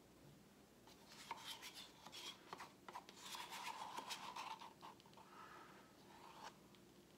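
Faint rubbing and scraping with a few light clicks, from gloved hands handling a paint cup and a wooden stir stick. It starts about a second in and stops shortly before the end.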